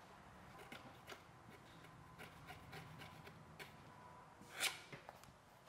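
Faint scraping clicks of a razor blade shaving the edge of a stitched leather sheath, trimming its three layers even, with one louder scrape about four and a half seconds in.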